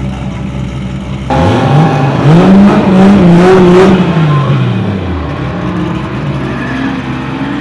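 Race car engine at full throttle, loud and sudden about a second in, its pitch climbing, holding, then falling away after a few seconds, over the steady drone of other engines. A fainter engine begins to rev near the end.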